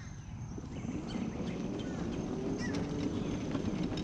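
Electric mobility scooter rolling along cracked asphalt: motor hum and tyre rumble with small rattles, growing louder about a second in as it picks up speed.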